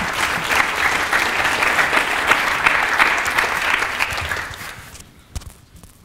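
Audience applauding, a dense patter of many hands clapping that fades out about four to five seconds in.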